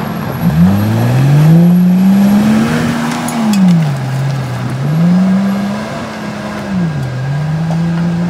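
Stock Jeep Wrangler TJ engine revving hard as it is driven: the pitch dips about half a second in, climbs and holds, falls about four seconds in, climbs again, and falls once more near the end before rising.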